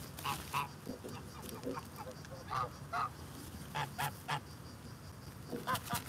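Geese honking: short honks, mostly in quick pairs or threes, repeating several times.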